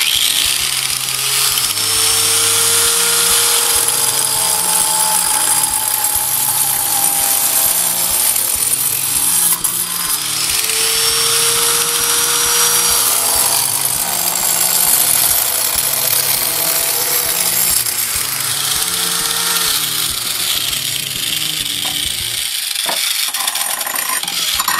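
Hand-held angle grinder with a diamond blade cutting through the ends of thin brick. It runs loud and continuous, and its whine sags and recovers several times as the blade bites into each brick.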